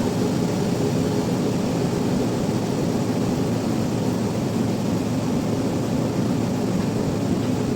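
Sawmill machinery running with a steady, even mechanical drone.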